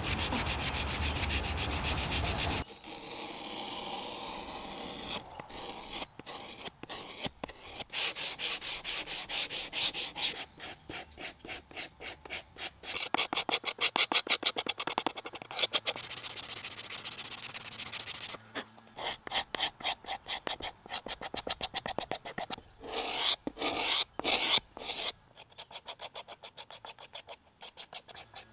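Hand sanding and scraping on wooden high chair parts: an abrasive block rubbed over the wood, then runs of quick back-and-forth strokes with short pauses between them.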